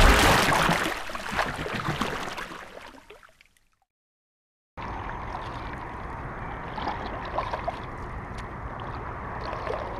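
The reverberating tail of a loud intro sting fades out over about three seconds, followed by a second of silence. Then come soft water gurgles and drips around a kayak being paddled, over a steady low hiss.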